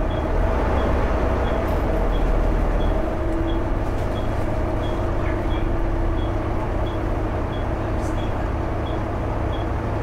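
Volvo B7TL double-decker bus's diesel engine running under way, a steady low drone with engine thrash, heard from the upper deck. A faint light tick repeats about every two-thirds of a second throughout.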